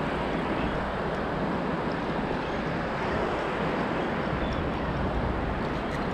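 Steady rushing noise of wind on the microphone over surf, even throughout with no distinct events.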